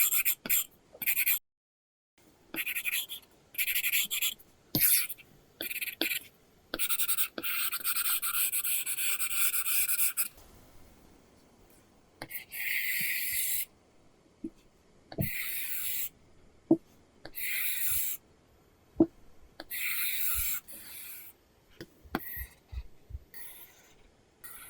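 Apple Pencil (2nd generation) drawing on an iPad Pro fitted with a paper-feel screen protector: a series of scratchy strokes, mostly short, one lasting about three seconds, with light taps of the pen tip in between.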